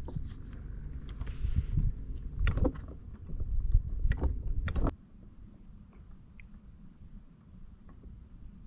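Knocks and clicks from gear being handled in a small fishing boat over a low rumble, dying down about five seconds in.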